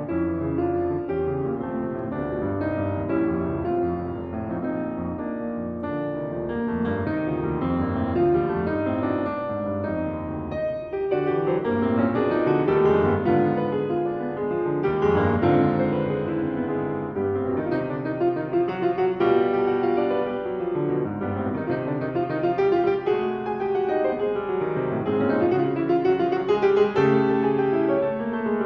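Solo piano piece played on a Shigeru Kawai grand piano: a continuous flow of notes across the keyboard, growing louder about a third of the way in.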